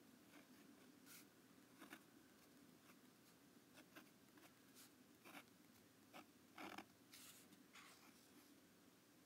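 Faint scratching of a pen writing on lined notebook paper, in short uneven strokes, the loudest of them about two-thirds of the way through.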